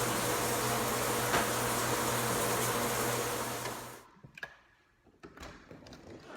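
Shower running: a steady rush of spraying water with a low hum under it, cutting off suddenly about four seconds in. A few faint knocks follow.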